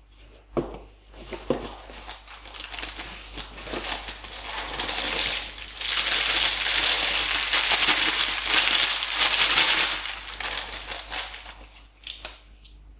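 Clear plastic packaging bag crinkling and rustling as a small red-dot sight is unwrapped from it, loudest in the middle and fading near the end. Two sharp clicks from handling the small box come within the first two seconds.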